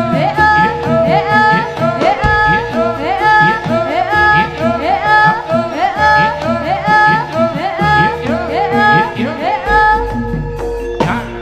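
Live jaranan sentherewe music: a gamelan-style ensemble with drums and gongs under a sliding, ornamented lead melody, played at a steady lively pulse.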